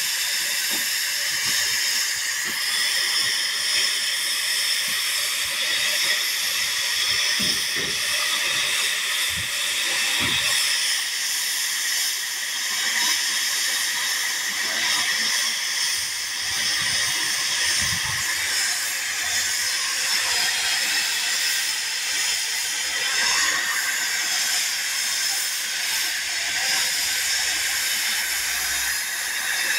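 Steam tank locomotive No. 16440 blowing off steam from its safety valves, a steady hiss that runs unbroken; the boiler is at full working pressure.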